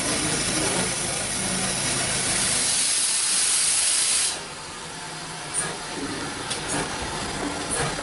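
Steam locomotive letting off steam: a loud, steady hiss that cuts off suddenly about four seconds in, leaving a few light clicks.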